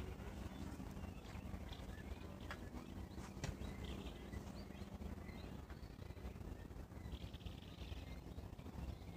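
Quiet outdoor ambience: a steady low rumble with short buzzy bird calls about four seconds in and again around seven seconds, and a couple of faint clicks around three seconds.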